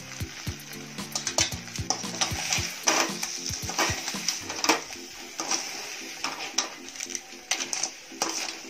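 Steel ladle scraping and clinking against a large steel pan as crab fry is stirred, in quick irregular strokes over a faint sizzle.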